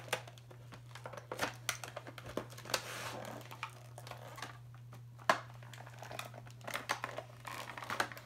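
Cardboard box and clear plastic packaging of an HO scale model locomotive crinkling, rustling and clicking as the box is opened and the plastic tray is worked out by hand, with a sharper plastic snap about five seconds in.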